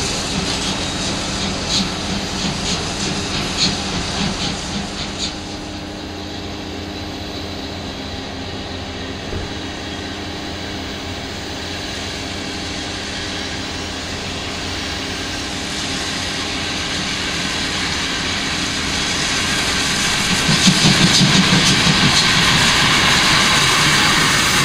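DB class 01.10 steam locomotive 01 1066, a three-cylinder express engine, shunting slowly with a steady rushing hiss of steam. A run of short sharp beats comes in the first five seconds. The sound grows louder toward the end as the locomotive draws near and passes.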